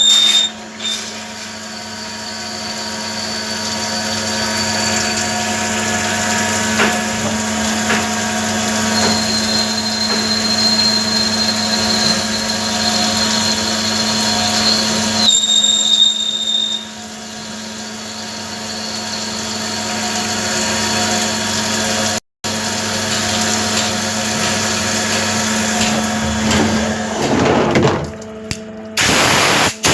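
A metal-cutting machine tool running steadily with a constant hum. A thin high whine comes and goes during cuts, and the sound cuts out for an instant about two-thirds of the way through.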